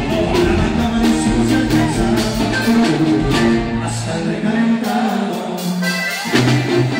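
Live band music: a sousaphone bass line under saxophone, guitar and drums. The deep bass drops out for about a second near the end, then comes back in.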